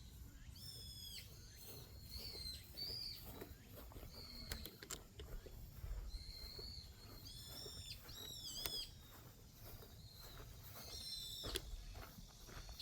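Wild birds calling again and again, short high chirps that bend down in pitch, over a low steady rumble. A few sharp clicks are heard, the loudest one near the end.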